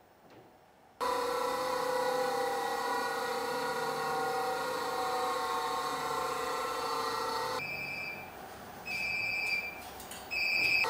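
Electric bench grinder running with a steady whine, stopping about seven and a half seconds in. Then a phone rings in short, evenly spaced electronic trills, three times.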